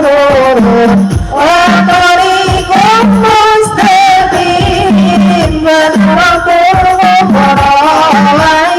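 Sholawat song with hadroh accompaniment: a singer holding long, wavering notes over steady frame-drum strokes and deep bass drum hits.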